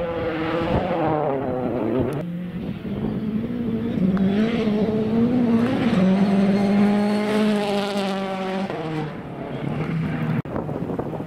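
Citroën C4 WRC rally car's turbocharged four-cylinder engine at high revs on gravel, its pitch climbing and dropping through gear changes as the car passes. The note holds steady for a couple of seconds past the middle.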